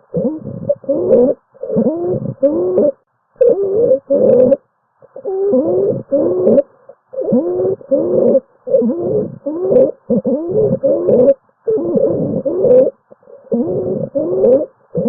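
Stridor: a harsh, pitched noise made in the throat with each rapid breath, bending up and down in pitch, in runs of about two a second broken by brief pauses. It is a sign of upper-airway narrowing and impending loss of airway.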